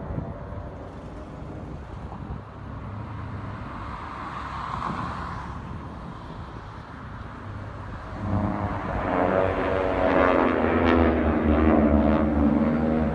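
Four single-engine propeller aircraft flying in formation overhead, their engines a steady drone that grows louder about eight seconds in as the formation comes closer.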